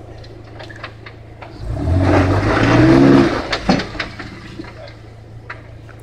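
Jeep Wrangler JK Unlimited Rubicon engine idling, then revving hard for about two seconds with its pitch climbing, tires scrabbling on rock as it tries to climb a rock ledge. The revs drop off, followed by a couple of sharp knocks.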